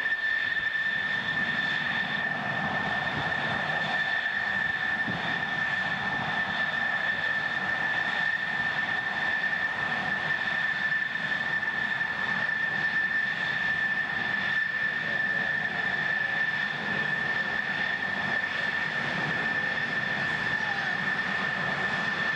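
F-14 Tomcat jet engines at taxi power: a steady high-pitched whine that holds one pitch over a constant rumble.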